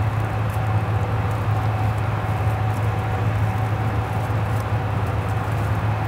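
Fendt Ideal 7T combine harvester running steadily, heard from inside its cab: a constant low drone with a faint steady whine above it.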